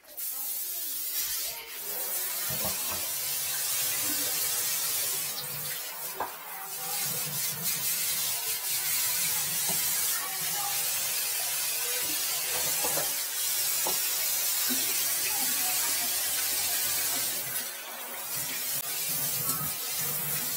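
Water spraying from a handheld bathroom shower head, running steadily with a few brief dips in level.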